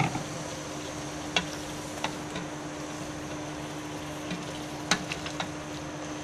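A black cooking spoon stirring beans, potatoes and brinjal in a pot with freshly added water, knocking against the pot several times over a steady sizzling hiss.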